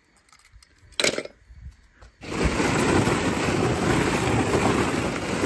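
Plastic ball-pit balls clattering in a dense, continuous rattle as they are stirred, starting about two seconds in. A single sharp click comes about a second in.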